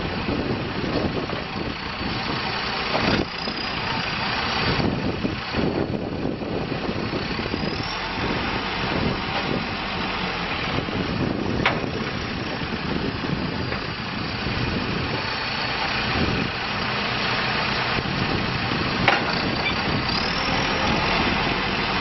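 2012 John Deere 310J backhoe loader's diesel engine running steadily, with two short sharp knocks, one about halfway through and one near the end.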